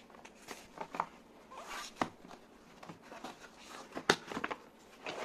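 Cardboard box being opened by hand: scattered scraping and rustling of the flaps with a few sharp clicks and knocks, the sharpest about two and four seconds in.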